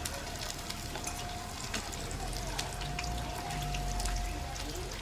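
Hot oil sizzling and crackling steadily in a frying pan, with many fine pops. A faint steady high tone sounds over it for about three seconds.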